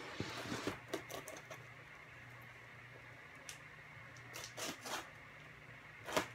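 Cardboard packaging being cut and handled: scraping and rustling in the first second or so, a few short rustles and taps later, and one sharper knock shortly before the end.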